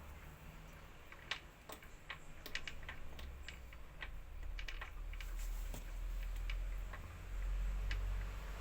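Irregular light clicks and taps of small parts being handled during workbench repair work, over a low rumble that grows stronger in the second half.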